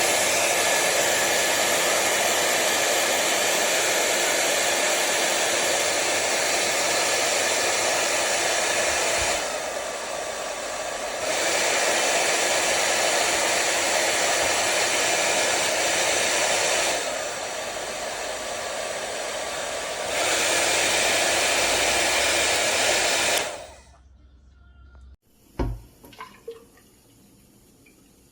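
VORAGA 5-in-1 hot air brush hair dryer (1200 W) running with a steady blowing whine, twice dropping lower for a few seconds, then cutting off suddenly near the end. A few faint clicks and knocks follow.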